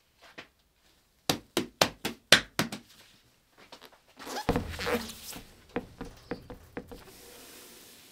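A cleaver chopping on a wooden board: a quick run of five sharp knocks about a second in, then about a second of noisy scraping and a few lighter knocks.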